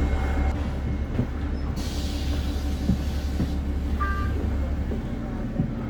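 Inside a city bus, a steady low rumble from the engine and the ride. About two seconds in there is a hiss of air lasting about a second and a half, and about four seconds in a short two-tone chime.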